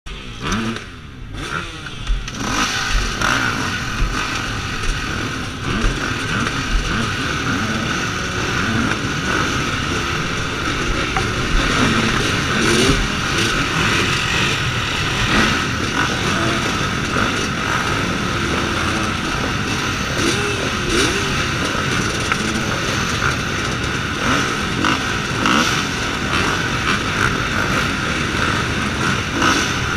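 A row of motocross bikes running at the start gate, their engines revved up and down so the pitch keeps wavering, with no pause. The sound rises to its full level about two seconds in.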